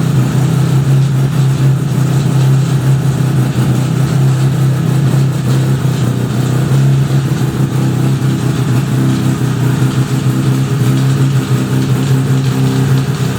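1975 Suzuki RE5's single-rotor Wankel engine running steadily, with a fuller, higher layer of tones joining about nine seconds in. The owner found the restored bike's transmission making an abnormal noise when the engine runs.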